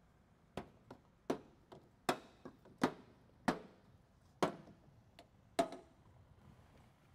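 Plastic retaining clips of a Tesla Model Y's wheel-arch trim popping out of the fender one after another as the trim is pulled off by hand: about ten sharp snaps, irregularly spaced, stopping a little before the end.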